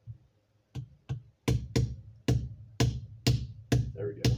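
Sharp taps of a screwdriver handle driving the mainspring housing pin into a 1911 pistol frame, about nine strikes at roughly two a second, starting about a second in.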